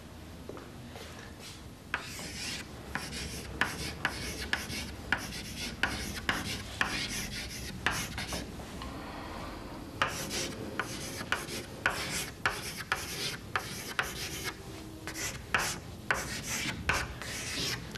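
Chalk writing on a blackboard: a string of short scratching strokes and sharp taps as letters are written, with a pause of about a second and a half before the writing resumes.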